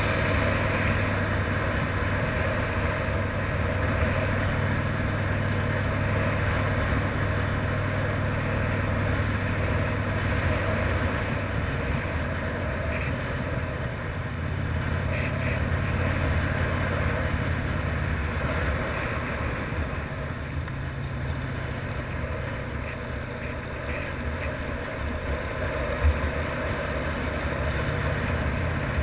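Harley-Davidson V-twin motorcycle engine running at cruising speed, a steady low note that shifts a little in pitch as speed changes, with wind and road noise over it. A brief knock near the end.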